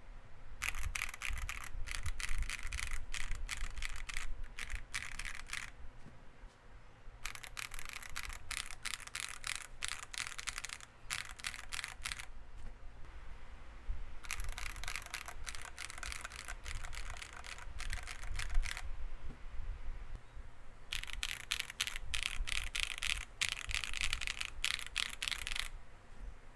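Typing on a WEIKAV Record mechanical keyboard with factory-lubed Akko Cream Black Pro linear switches on a polycarbonate plate, with Akko Cream PBT keycaps. Four runs of fast keystrokes with short pauses between them.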